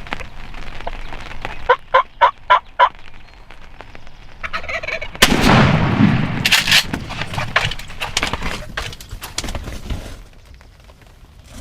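A run of five short turkey yelp notes, then about five seconds in a single loud shotgun shot at a turkey, the loudest sound here: a shot the hunter thinks missed.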